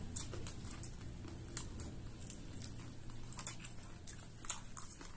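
Close mouth sounds of people chewing spicy chatpate, a crunchy puffed-rice snack, eaten from small spoons: a scatter of crisp crackles and small clicks, several a second, over a low steady hum.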